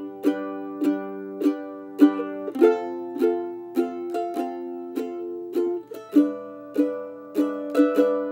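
F-style mandolin strummed in a steady 3/4 waltz rhythm, a strum roughly every half second, the chord changing twice along the way.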